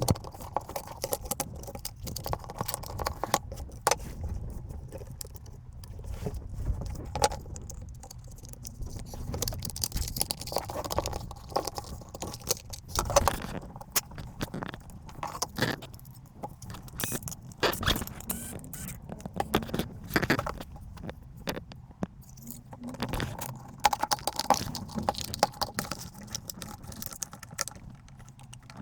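Irregular clicks, taps and scrapes of small metal and plastic parts being handled during hands-on repair work on a cordless battery stapler.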